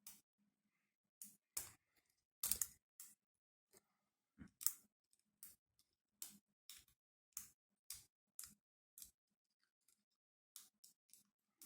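Lock pick and tension wrench working the pins of an ASSA Ruko 500 padlock core, giving short sharp clicks at an irregular pace, about one or two a second.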